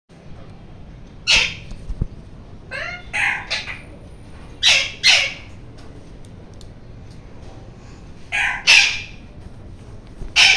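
Ringneck (rose-ringed) parakeet giving loud, harsh screeches in short groups of one or two, a few seconds apart.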